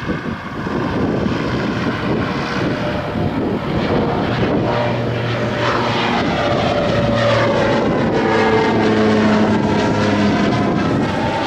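Propeller aircraft engine drone as the plane passes, its pitch sliding down about halfway through.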